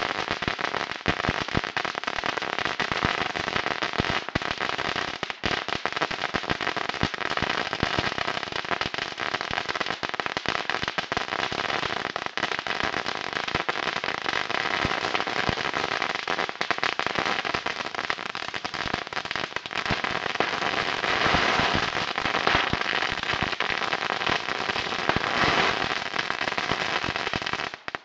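A long string of firecrackers going off as a continuous, rapid crackle of pops. It stops abruptly near the end.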